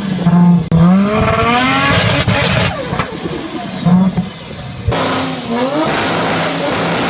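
Nissan Skyline GT-R's twin-turbo engine revved up and let off several times, with turbo flutter (compressor surge) as the throttle shuts. About five seconds in it cuts abruptly to another revving car.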